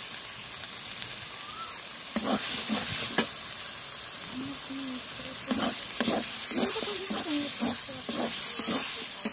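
Spice masala with coconut paste sizzling in a hot iron kadai, with a metal spatula scraping and knocking against the pan as it is stirred through.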